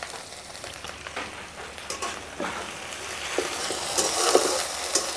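Onion, tomato, garlic and ginger masala sizzling in oil in an iron kadai as a little water is added, with a slotted metal spatula clicking and scraping against the pan as it stirs. The sizzle grows louder about four seconds in.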